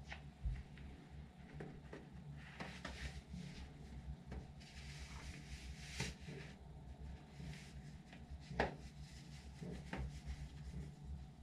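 Feet in socks stepping and shuffling on a tiled floor: faint scuffs and soft taps, with a sharper tap about eight and a half seconds in.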